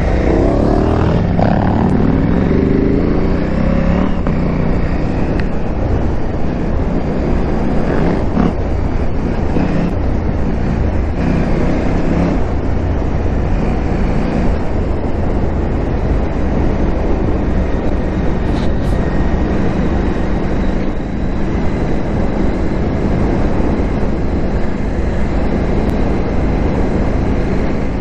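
KTM 890 Adventure R parallel-twin engine running as the motorcycle rides along off-road, revving up over the first few seconds, under a steady rush of noise.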